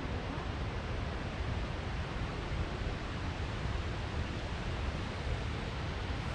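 Steady outdoor rushing noise: an even hiss with no distinct events.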